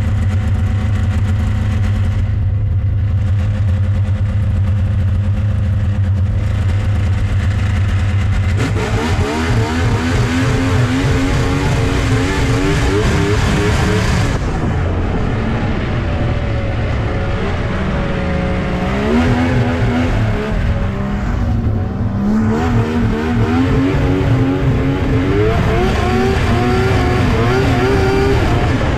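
Snowmobile engine running steadily at first, then from about nine seconds in revving up and easing off several times, its pitch climbing and dropping.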